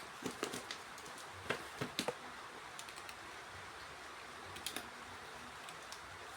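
Light clicks and taps of objects being handled, in a few short clusters over a steady faint hiss, the loudest group of clicks about a second and a half to two seconds in.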